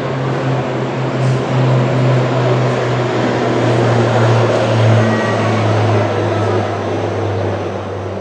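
Low, steady engine drone that swells to its loudest about five seconds in and then eases off, its pitch sinking slightly as it goes.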